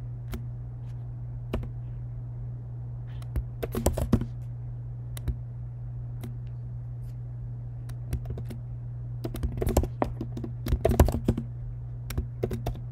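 Computer keyboard typing: scattered key clicks, coming in short runs about four seconds in and again in the last few seconds, as answers are typed at command-line prompts. A steady low hum runs underneath.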